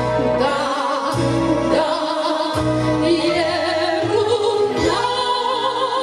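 Women's vocal ensemble singing sustained notes with vibrato, over an instrumental accompaniment with a low bass pulse about once a second.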